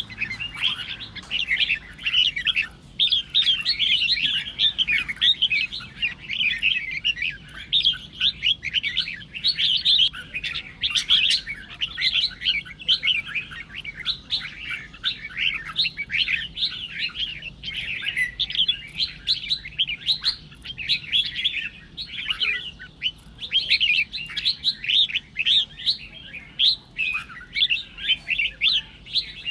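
Red-whiskered bulbul song: a dense, unbroken run of quick, high chattering notes, the fast competitive song that bird keepers play to rouse caged bulbuls into singing.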